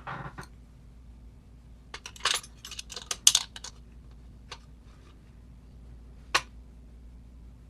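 Small metal lock parts and tools clicking and clinking as they are handled: a short rattle, then a quick run of sharp clicks, then two single clicks near the end.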